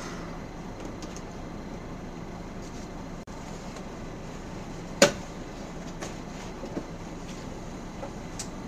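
Mercedes-Benz O405N city bus's diesel engine idling steadily at a standstill, heard from inside the bus. A few light clicks and one sharp knock about five seconds in.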